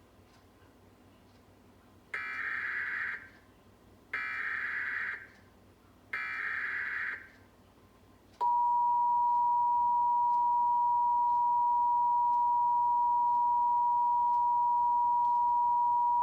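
Emergency Alert System header: three one-second bursts of digital data tones about two seconds apart, then the two-tone EAS attention signal held steady for about eight seconds, signalling the start of a tornado warning broadcast.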